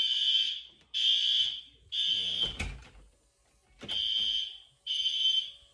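Building fire alarm sounding loud, high-pitched electronic beeps in the three-beep evacuation pattern: three beeps about a second apart, a short pause, then three more. A single thump comes just before the pause.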